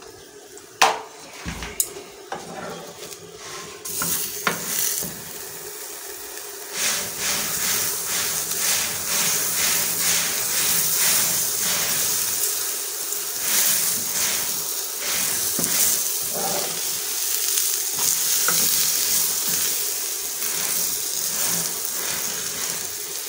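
Butter sizzling and frying on a hot iron tawa under a paratha, with repeated scraping strokes as the butter is spread and the paratha is pressed and turned on the griddle. A few sharp spoon knocks in the first two seconds; the sizzle turns loud about four seconds in and keeps going.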